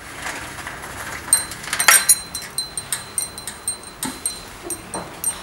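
Metal wind chime ringing: many light, irregular strikes at the same high pitches, loudest in a cluster about two seconds in. A couple of duller knocks come near the end.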